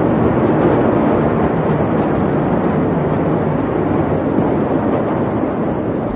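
Steady, loud, rushing roar with no separate bangs, from a large fire and smoke plume burning at a port warehouse, heard from a distance.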